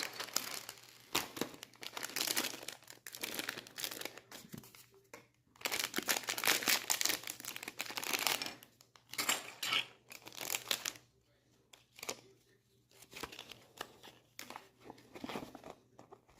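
Packaging crinkling and tearing in irregular bouts with short pauses, as a blind box's inner package is worked open by hand.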